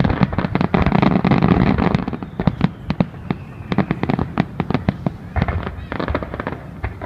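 Fireworks going off: a rapid string of sharp bangs and crackles, densest in the first two seconds and again around six seconds in.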